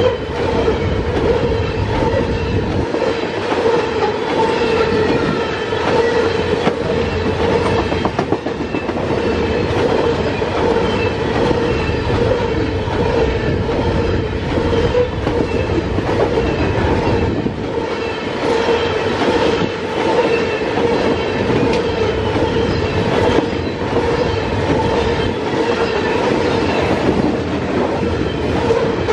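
Loaded coal hopper cars of a freight train rolling past at speed: a steady rumble and clatter of steel wheels on the rails, with a steady whine over it.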